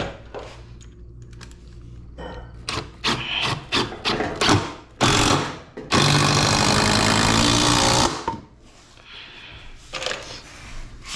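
A run of sharp knocks and thunks, then a Makita impact driver hammering steadily for about two seconds, driving a screw into framing lumber.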